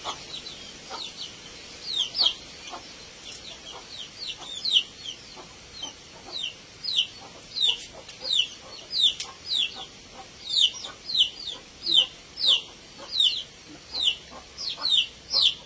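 Domestic chicks peeping: short, high-pitched peeps that each fall in pitch, scattered at first, then coming steadily about twice a second.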